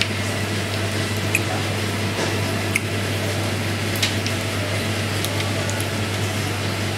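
Steady hiss and low hum of a commercial kitchen's ventilation, with a few faint clicks and soft squishing as steamed crayfish meat is pulled from the shells by gloved hands.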